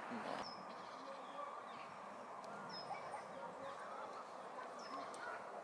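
Open-air background hiss with birds calling faintly: three short high chirps spread through, over fainter lower calls.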